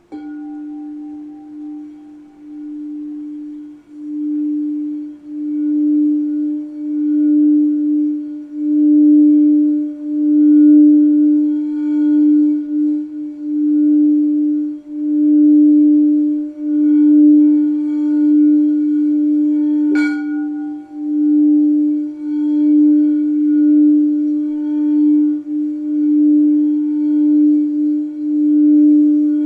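Crystal quartz singing bowl sung by rubbing its rim: one loud steady low tone that swells and fades in a slow pulsing wobble, with fainter higher overtones. About twenty seconds in, a single sharp tap rings out briefly over it.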